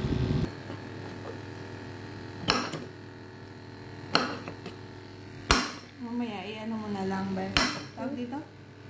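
A kitchen knife cutting pineapple rings on a ceramic plate, the blade knocking sharply against the plate four times, a second or two apart.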